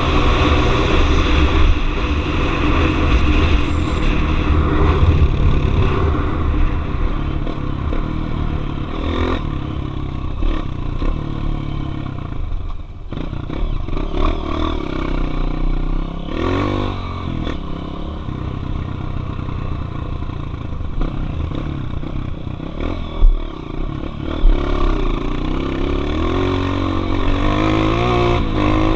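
Single-cylinder four-stroke trail motorcycle engine running on a dirt trail, its pitch rising and falling as the throttle opens and closes. Two sharp thumps come about three-quarters of the way through.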